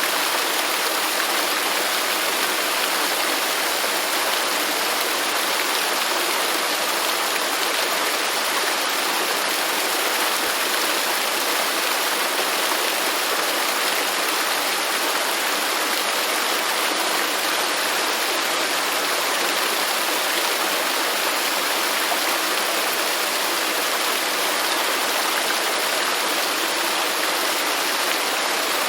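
Waterfall: water falling and rushing in a steady, even roar of white noise.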